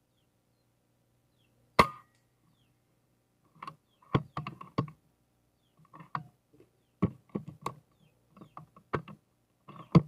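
A single sharp crack of an FX Impact PCP air rifle firing, about two seconds in, followed by a run of irregular mechanical clicks and knocks in small clusters, ending in one more sharp, loud click.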